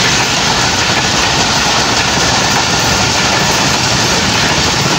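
Pakistan Railways passenger coaches rolling past at speed on the near track: a loud, steady rumble of wheels on rails.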